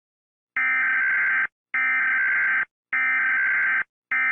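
Electronic emergency alert tones: harsh, buzzing bursts about a second long, starting about half a second in and repeating four times with short gaps.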